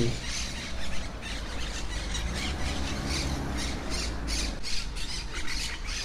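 Monk parakeets squawking: a dense, steady stream of harsh, rapidly repeated calls from the colony, over a low steady rumble.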